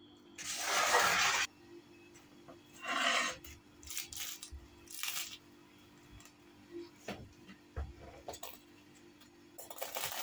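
Crisp, flaky baked börek crust crackling and crunching: a few loud crunches early on, scattered small crackles as a hand presses on the pastry, then a quick run of crunching near the end as a knife cuts through the crust.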